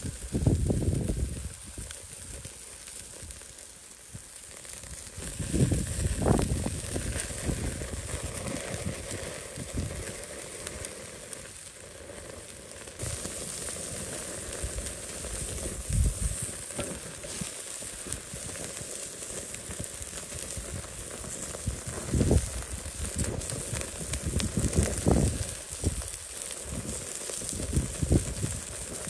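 Chicken and pork sizzling over a charcoal grill, with fat crackling and flaring on the hot coals as a steady hiss. Several low rumbles come and go.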